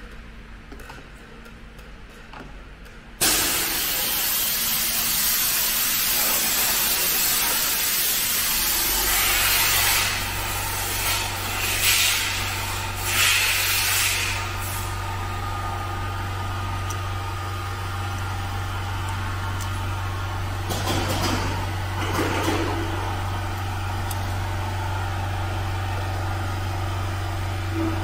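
A sudden loud hiss about three seconds in, lasting several seconds, then a steady low electric hum from the heavy-duty big-bag sewing machine's belt-driven motor running while the machine stands idle.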